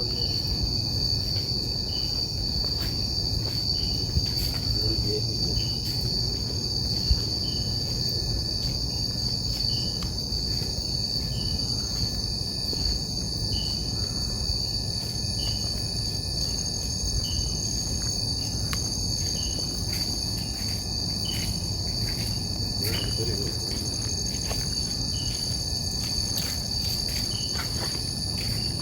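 Night chorus of crickets and other insects: several steady high-pitched trills together, with a separate short chirp repeating about once a second. A steady low rumble sits underneath.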